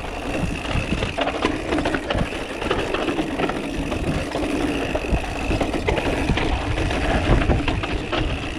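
Mountain bike ridden fast over a rough trail: the chain and frame rattle and the tyres knock over rocks, over a steady low rumble of wind on the microphone.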